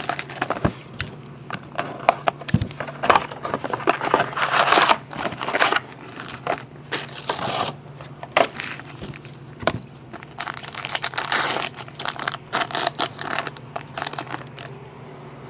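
Cardboard box and foil card packs being torn open and crinkled by hand, an irregular run of rustling, crackling and tearing with small clicks, over a faint steady hum.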